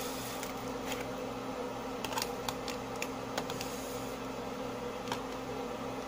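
Metal knife and fork cutting food on a plastic plate: a handful of light, irregular clicks and scrapes over a steady low hum.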